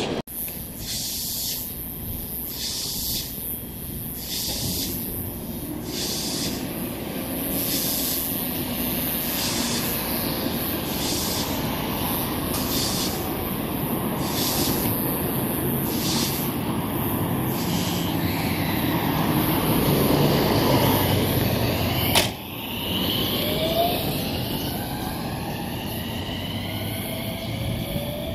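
JR West 207 series electric train pulling out, its wheels rumbling on the rails. From about two-thirds of the way in, the whine of its traction motors rises in pitch as it speeds up. A regular high tick, about one a second, runs through the first half.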